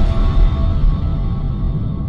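Dark cinematic logo-intro music: a deep rumbling drone with higher held tones fading away.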